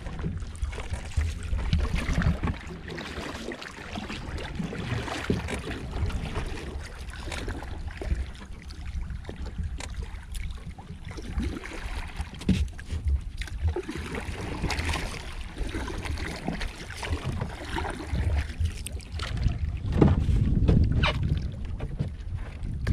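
Wind buffeting the microphone over water splashing and sloshing against a small wooden fishing boat at sea, in uneven gusts and slaps with no engine running.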